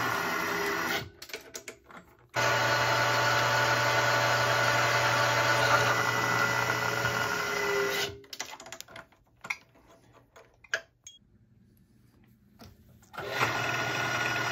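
Vertical milling machine's spindle motor running with a steady hum; it is switched off about a second in, started again a second later, and shut off again about eight seconds in. Light metallic clicks of tooling being handled are heard while it is stopped, and the motor starts once more near the end.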